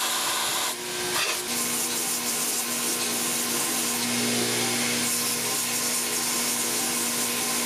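Belt grinder running, with a high-carbon steel knife blank pressed against the belt over the contact wheel: a steady grinding hiss over a low motor hum. About a second in it briefly drops and changes, where a bandsaw cutting steel gives way to the grinder.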